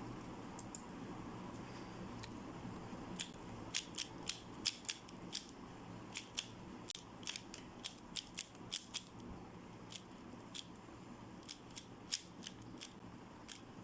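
A 3x3 speed cube being turned quickly by hand during a scramble: irregular, sharp plastic clicks as its layers snap round, sparse at first and coming in quick runs from about three seconds in.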